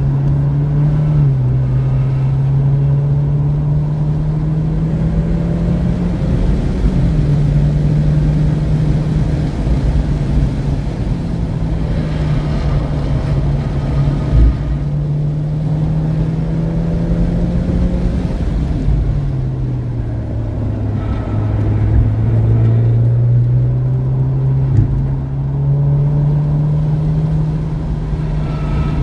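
2017 Alfa Romeo Giulia Ti's turbocharged 2.0-litre four-cylinder, with aftermarket street exhaust, running hard at track pace. Its pitch climbs under acceleration, dropping sharply at upshifts about a second and seven seconds in, then falls gradually around twenty seconds in as the car slows and climbs again.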